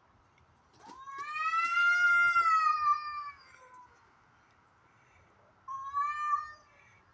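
Cats yowling: one long drawn-out wail of about three seconds that rises and then slowly sinks, then a shorter yowl about six seconds in. A caterwaul of the kind that comes from either a fight or a tom courting a female in heat, which the owner could not tell apart.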